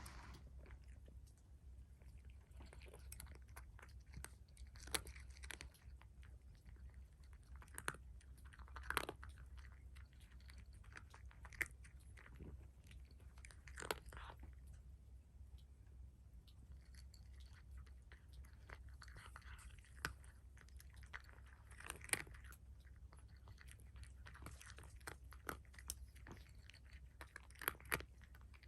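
A cat chewing its food: faint, irregular clicks and crunches of its bite, a few seconds apart and in small clusters, over a low steady hum.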